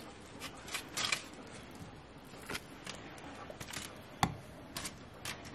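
Cutlery cutting up pieces of grilled steak, with scattered light clicks and scrapes against foil and a ceramic bowl as the pieces are put in. One sharper knock about four seconds in.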